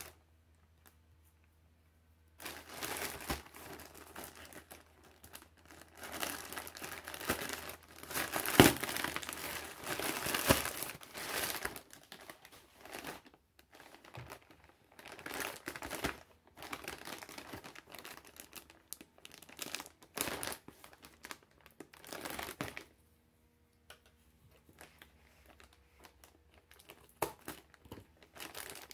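Plastic packaging crinkling and rustling in the hands in irregular bursts with short pauses, starting about two seconds in: a grey polyethylene courier mailer being opened, then the clear plastic bag holding a baseball cap being handled.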